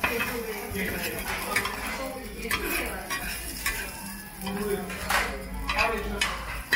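Metal spatulas scraping, chopping and stirring food on a hot iron griddle, in repeated short strokes over a steady sizzle.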